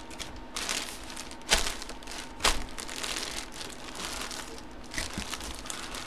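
Plastic bag crinkling as hands press a bagged jersey down into a cardboard box, with a couple of sharper rustles about one and a half and two and a half seconds in.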